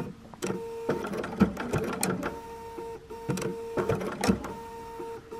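Electric sewing machine sewing a blanket stitch slowly around a small appliqué shape: a steady motor whine with sharp clicks of the needle and feed, stopping briefly between short runs of stitches.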